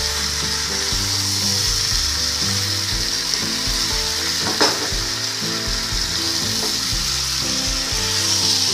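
Jackfruit, potato and tomato sizzling in spice paste in a non-stick pan while a spatula stirs through it, at the stage where the masala is being fried down. One sharper scrape of the spatula stands out about halfway through.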